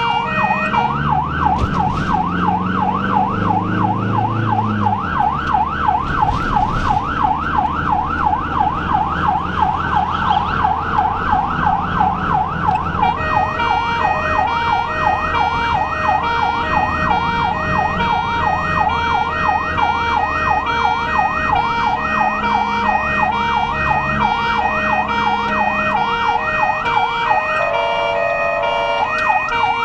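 Ambulance's electronic siren on a fast rising-and-falling yelp, about three sweeps a second, heard from inside the cab on an emergency run. Near the end it briefly switches to a different tone, then goes back to the yelp. Under it the engine runs and rises in pitch as the ambulance speeds up in the first few seconds.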